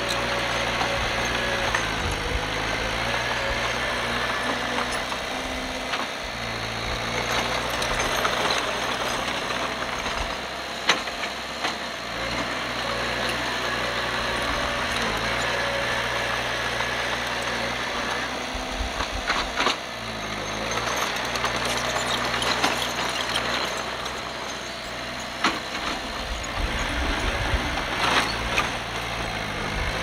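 Komatsu D51PX bulldozer's diesel engine running steadily, its pitch stepping up and down several times, with a few sharp metallic knocks.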